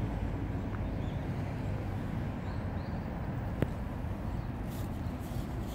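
Outdoor ambience: a steady low rumble with a few faint bird chirps, and a single sharp click about three and a half seconds in.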